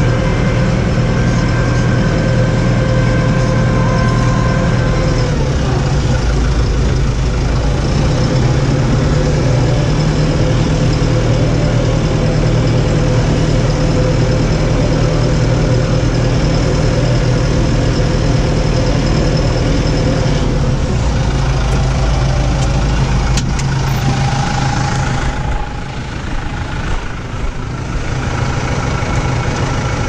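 New Holland T4.75 tractor's four-cylinder diesel engine running steadily, heard from inside the cab. The engine note shifts about five seconds in, and for the last few seconds the sound is quieter and more uneven, with a few clicks.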